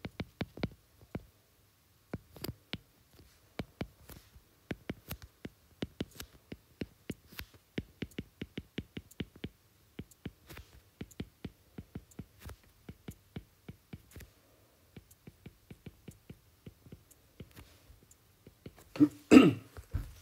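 Stylus tip tapping and clicking on a tablet screen during handwriting, in quick runs of several taps a second with short pauses. Near the end, one short, louder throat sound.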